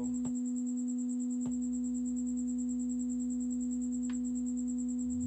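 Steady, unchanging low sine tone from an audio frequency generator played through a speaker, with a faint high-pitched whine under it and a few faint clicks.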